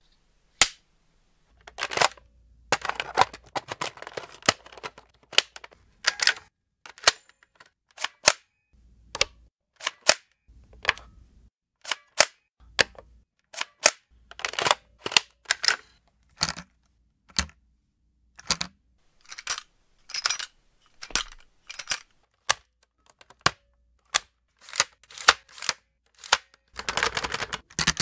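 Weapon-handling foley: a quick series of sharp mechanical clicks and short metallic clattering rattles, one after another with brief silences between, growing busier near the end.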